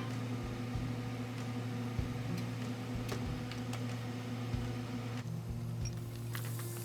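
Steady low mechanical hum, like a kitchen motor or fan, with a few light clicks and taps scattered through it.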